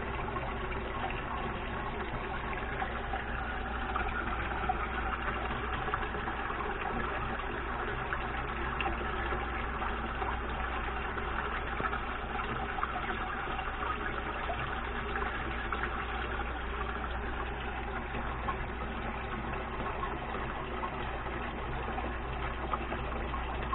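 Steady rush of running water with an even low hum underneath, unchanging throughout.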